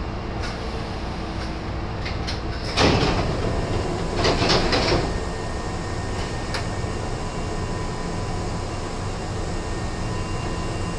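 Nose Electric Railway 1700-series electric train over a steady rumble: a sharp knock about three seconds in, then a hiss of compressed air lasting about a second.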